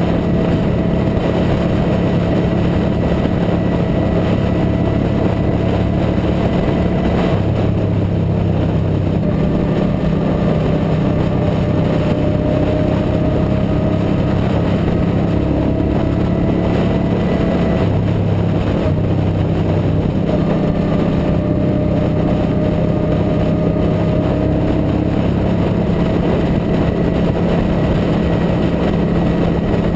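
Suzuki Boulevard M109R V-twin cruiser engine running steadily at highway cruising speed under a constant rush of wind and road noise, its note shifting slightly a few times.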